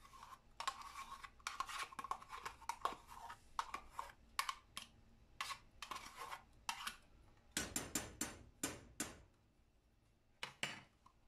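Metal spoon scraping and tapping inside a plastic yogurt cup as the yogurt is scooped out: a string of irregular scrapes and clicks, busier about three-quarters of the way through.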